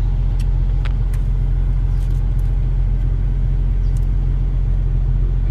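Car engine running with a steady low rumble, heard from inside the cabin, with a few faint sharp ticks scattered through.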